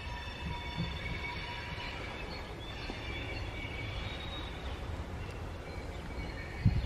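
Steam locomotive rolling slowly over curved track and points: its wheel flanges squeal in several wavering high tones for the first few seconds over a steady low rumble, with one heavy thump near the end.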